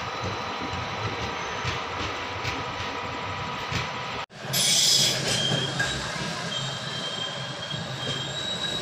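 Passenger train rolling slowly through a station, with a steady rumble and wheels clicking over rail joints. After a sudden cut about four seconds in, there is a loud hiss and then an on-and-off high wheel squeal.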